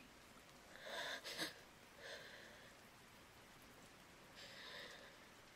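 A woman's slow, soft sleep breathing close to the microphone: a louder breath about a second in, then two quieter breaths.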